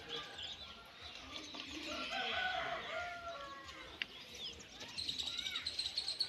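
Morning village birdsong: small birds chirping and calling throughout, with a rooster crowing about two seconds in. Near the end a bird repeats a quick high chirp many times.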